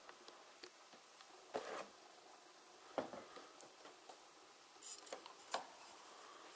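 Faint handling noise: scattered small clicks and rubbing, with a few louder taps about one and a half, three and five and a half seconds in.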